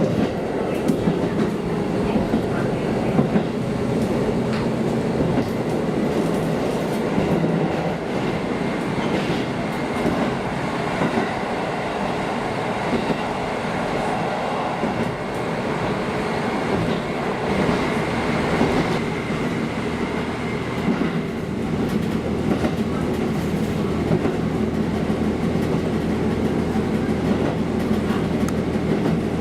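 Diesel railcar running along the line: a steady engine drone with the clickety-clack of wheels over rail joints.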